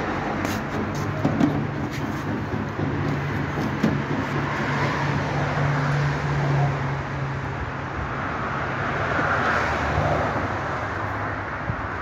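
Outdoor road-traffic noise with a vehicle engine running: a steady low hum under a noisy rush, with a couple of faint clicks.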